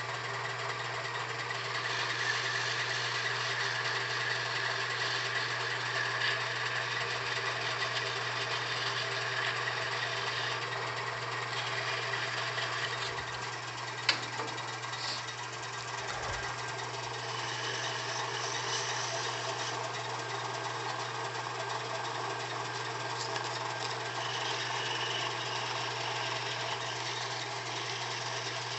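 Wood lathe running with a steady motor hum while a small spinning wooden ornament piece is sanded and worked by hand, giving a scratchy hiss over the hum. One sharp click about halfway through.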